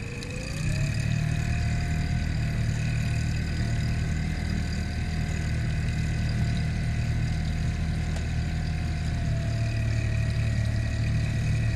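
Brand-new Mercury 15 hp Pro Kicker four-stroke outboard running in gear at low throttle, being broken in, pushing the boat along; its note rises slightly about a second in, then holds steady.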